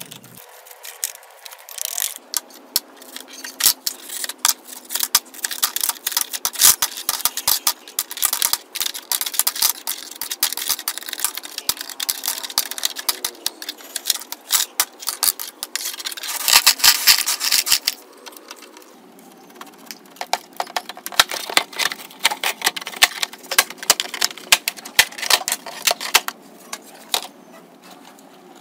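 Dense, irregular clicking, scraping and clinking of shattered screen glass being picked and pried off the front of a broken LCD monitor with a small hand tool, with a louder stretch of scraping a little past the middle.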